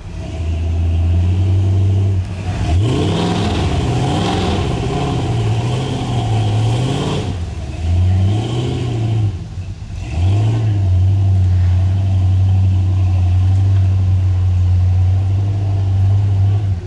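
Off-road buggy's engine revving hard in repeated surges, pitch rising and falling, as it climbs through deep mud. After a short dip about ten seconds in, it is held at steady high revs.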